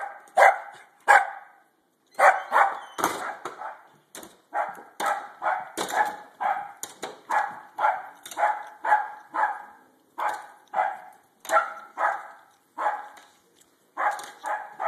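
Lakeland Terrier barking over and over, about two to three barks a second, with short breaks a little after the start and about two-thirds of the way through.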